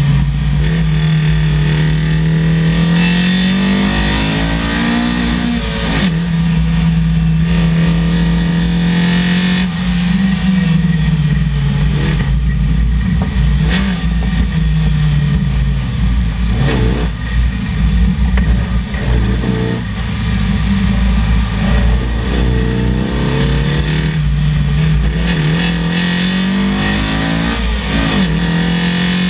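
Nissan SR20VE four-cylinder engine in a Datsun 1200 rally car, heard from on board, driven hard between about 4,000 and 6,700 rpm. Its pitch climbs again and again under acceleration and drops sharply at gear changes and lifts for corners.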